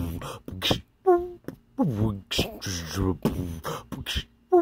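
A man beatboxing: sharp mouth-percussion clicks and hisses alternating with short pitched vocal notes that slide in pitch.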